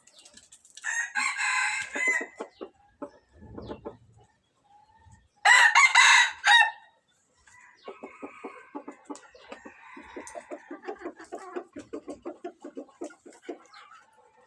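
Rooster crowing twice, two short loud crows about a second in and about five and a half seconds in, followed by a long run of rapid clucking notes.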